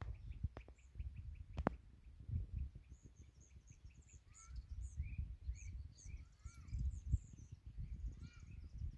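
Small birds chirping and calling, many short repeated notes starting about three seconds in, over a low, uneven rumble and a couple of sharp clicks early on.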